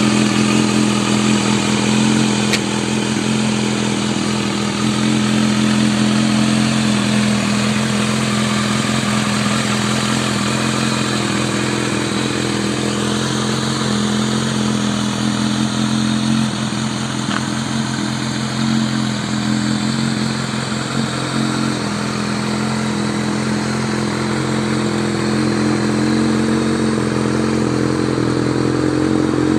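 Restored vintage Kawasaki motorcycle engine idling steadily.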